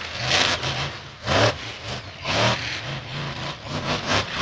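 Monster truck engine revving in repeated short bursts, about one a second, each rising in pitch.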